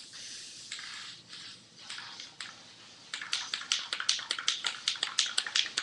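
Aerosol spray-paint can hissing in short spells as paint is sprayed onto a skateboard deck. About three seconds in it gives way to the fast clicking rattle of the can's mixing ball as the can is shaken, about seven or eight clicks a second.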